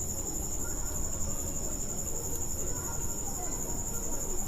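A cricket trilling steadily: one high, continuous, finely pulsing trill.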